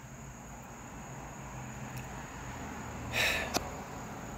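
Quiet car-cabin room tone with a steady low hum; about three seconds in, a short breathy exhale, then a small click.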